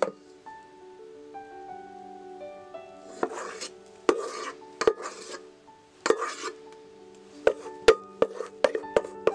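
Background music with soft held notes; about three seconds in, four scraping strokes of a utensil against the metal mixing bowl as the whisked egg-yolk mixture is scraped out onto the meringue. Crisp percussive ticks of the music come back near the end.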